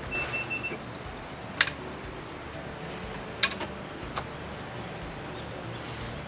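Three sharp clicks of door-lock hardware being handled and fitted: one about a second and a half in, one at about three and a half seconds, and a lighter one just after four seconds, over a steady background hiss.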